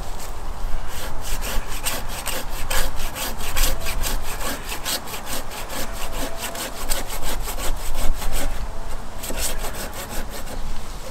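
Oregon 330mm curved Japanese pruning hand saw cutting through a green eucalyptus branch: a fast, even rasping of strokes, about three a second, with a short pause about three-quarters of the way through before the strokes resume.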